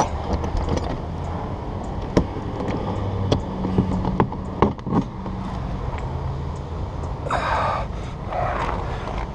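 Bolt cutters worked on a padlock: a few sharp metal clicks and scrapes, over a steady low hum, with two short rushes of noise near the end.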